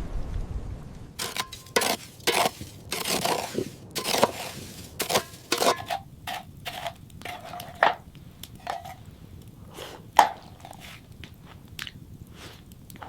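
Hard objects knocking and clinking in an irregular series, some hits with a short metallic ring. The series is busiest in the first half, and the sharpest clink comes about ten seconds in.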